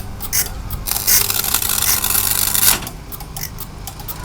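Flash butt welder joining the ends of a band saw blade: a dense crackling hiss of flashing starts about a second in and cuts off sharply under two seconds later, over a steady low electrical hum.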